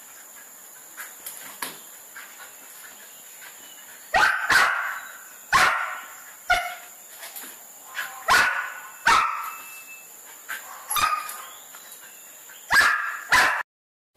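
Medium-sized tan dog barking, about ten loud single barks at irregular intervals, starting about four seconds in and cutting off abruptly near the end.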